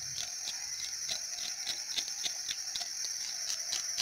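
Knife scraping scales off a curimba, in quick, sharp strokes about three or four a second, over a steady high-pitched insect buzz.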